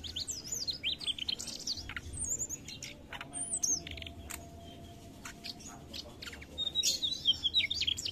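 Mugimaki flycatcher singing: quick bursts of high, twittering chirps and sliding notes, with a pause of a couple of seconds in the middle before the song picks up again near the end.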